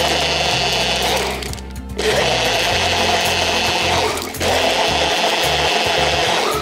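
Personal bullet-style blender motor running in three pulses with short breaks between them, its blades chopping plant pieces in liquid into a pulp.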